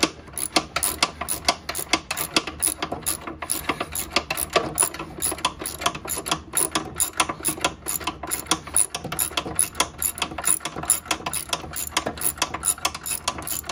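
A socket ratchet with a deep-well socket clicking steadily, several clicks a second, as it is swung back and forth to back out a long bolt.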